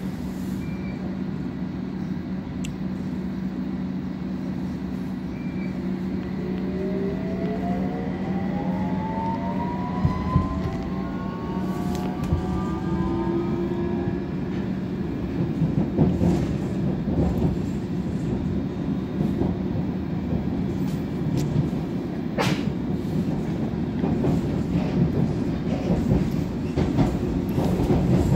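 London Underground District Line train heard from inside the carriage as it runs along the track, with a steady rumble and hum. A motor whine rises in pitch through the middle as the train picks up speed, and the wheels give sharp knocks over rail joints several times.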